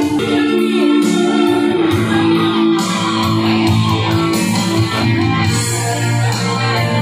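Karaoke backing music with guitar, playing steadily over the hall's loudspeakers.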